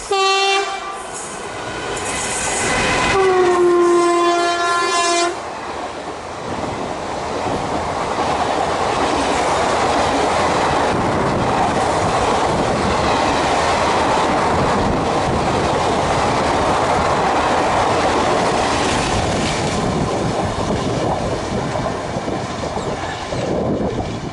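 WCAM1 electric locomotive's air horn sounding a short blast, then a longer one about three seconds in. The train then passes at speed, with a steady rush of wheels and coaches on the rails that fades near the end.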